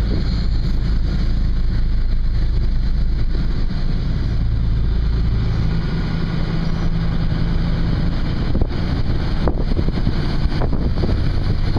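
Outdoor wind rumbling loudly on the microphone, with a steady low hum underneath.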